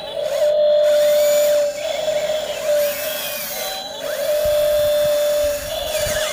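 Electric motors of a radio-controlled toy Volvo excavator whining steadily. The whine swells louder twice, for a second or so each time, as functions are worked, with some low knocks in the second half.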